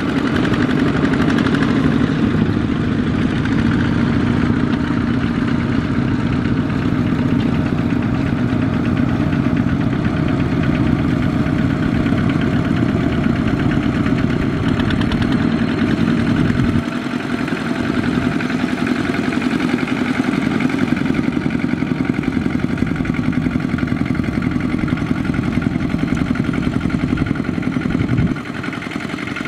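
Several single-cylinder diesel two-wheel tractors running steadily under load as they pull trailers of rice sacks, a fast even engine chug. The sound drops in loudness a little past the middle and again near the end.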